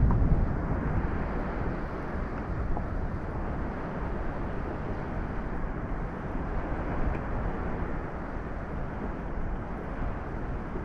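Steady outdoor rumble of wind and water on the microphone of a kayak at sea, even throughout with no distinct events.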